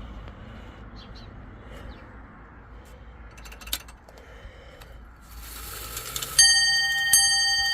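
Strike train of an 8-day English longcase clock movement being set going by hand: scattered clicks from the mechanism, a rising whirr as the train runs, then the hammer hits the bell twice, about 0.7 s apart, each blow ringing on.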